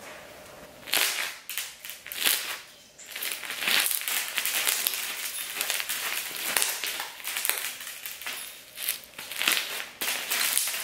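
Clear slime packed with sugar beads being squeezed and kneaded by hand. It makes a crunchy crackling that starts about a second in and turns dense and continuous after about three seconds.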